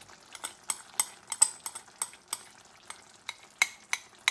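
Chicken karahi frying in hot separated oil in a pan, sizzling with sharp, irregular pops and crackles several times a second as cream is poured in from a glass bowl.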